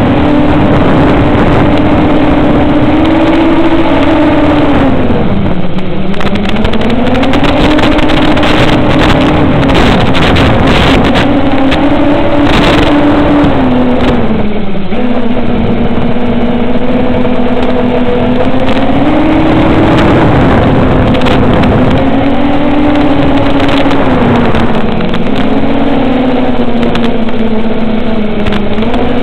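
Motors of a 7-inch FPV quadcopter (2508-size 1750kv brushless motors on 7-inch two-blade props) whining in flight, the pitch sinking and climbing as the throttle changes, with a clear dip about five seconds in and another around fifteen seconds.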